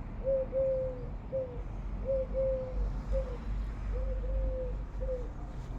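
A dove or pigeon cooing: a low three-note phrase, short, long, short, repeated three times, over a low rumble.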